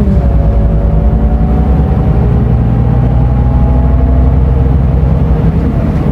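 Scania Euro 6 diesel engine of an Irizar i6S coach running under load, heard from inside the bus, with a deep steady rumble and a pitch that rises slowly over the first few seconds.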